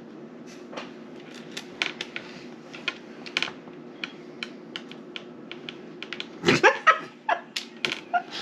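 Light, irregular clicks and taps of board-game pieces and cards being handled on a table, with a louder flurry of taps about six and a half seconds in.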